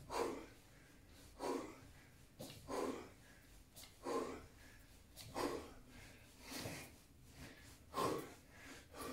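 A man breathing hard and rhythmically under exertion in a prone 'swimmer' back exercise: a short, forceful breath about every 1.3 seconds, seven in a row.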